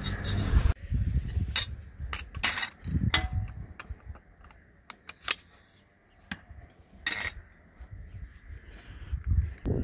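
Small metal hand garden tools, a trowel, a mini cultivator and a small fan rake, scraping and raking through loose potting soil, with scattered sharp clicks and clinks of the metal tool heads. A steady rush of noise at the start cuts off under a second in.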